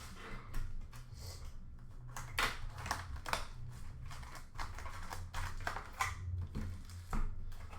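Trading card packs being handled and opened: irregular crinkling and crackling of pack wrappers, with cards tapping and sliding, over a steady low hum.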